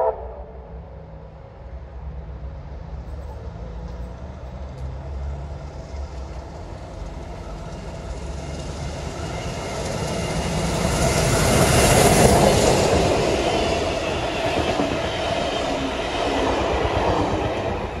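C38-class 4-6-2 steam locomotive 3801 and its carriages passing through on the rails. The rumble and wheel noise build to a peak about twelve seconds in, then fade as the train goes by.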